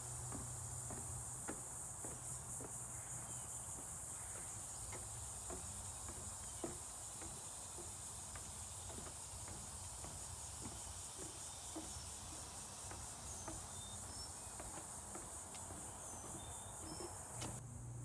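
Steady high-pitched insect chorus with a fine pulsing buzz, over soft, fairly regular knocks of footsteps on a wooden boardwalk. The insect sound cuts off suddenly near the end.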